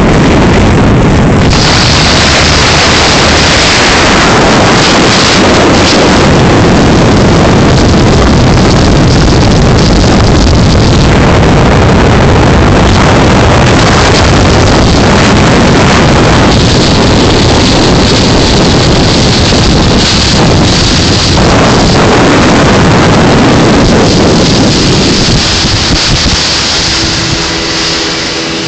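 Motorboats running at speed over choppy water: loud rushing wind on the microphone, water spray and outboard engine noise blended into one dense roar. It eases near the end, where a steady hum comes through.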